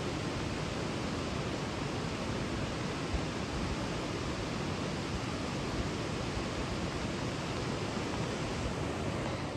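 Rushing river water: a steady, even roar of water flowing through the gorge.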